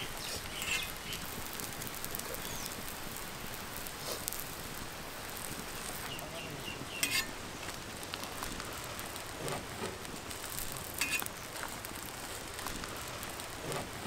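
Egg omelette sizzling steadily on a hot flat griddle, with a few short sharp clicks of a metal spatula against the griddle.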